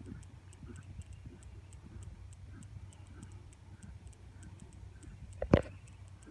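Thoroughbred horse cantering on grass: a steady, even rhythm of muffled hoofbeats. A single sharp knock about five and a half seconds in stands out above it.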